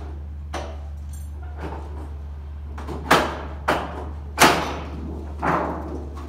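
White aluminum trim coil being bent on a portable siding brake: a series of four sharp metallic clanks and rattles from the brake and the thin sheet, the third the loudest, over a steady low hum.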